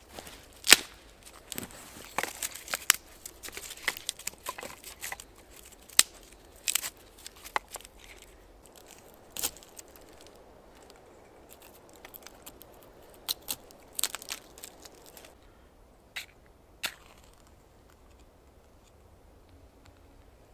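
Irregular crackling and snapping with some rustling, as of dry material being handled or broken. It is dense for the first several seconds, then thins to scattered snaps, the last two about three-quarters of the way through.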